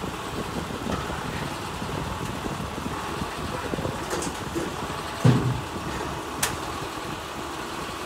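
Heavy diesel engine idling steadily, with a low thump about five seconds in and a short sharp knock a second later.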